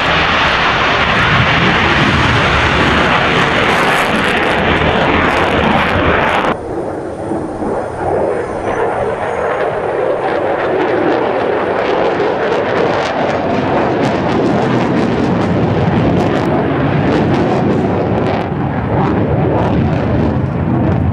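Lockheed Martin F-35's single Pratt & Whitney F135 afterburning turbofan running at full power on takeoff, a loud, dense roar. About six and a half seconds in it cuts abruptly to a duller, lower jet noise from the aircraft in flight, swelling and fading.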